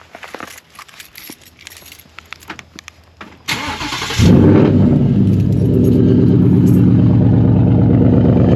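Keys and small clicks, then a 2023 Ford Mustang GT's 5.0-litre V8 cranks briefly and fires about four seconds in with a loud flare, settling into a steady idle.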